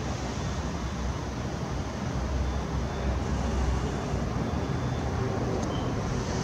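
Steady rumble and hiss of a four-engine jet airliner's engines heard from the ground, without rising or falling.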